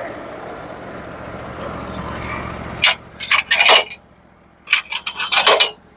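Portable bandsaw sawmill running steadily at a lower level. Then come two bursts of sharp clattering knocks with a metallic ring, about three seconds in and again near the end.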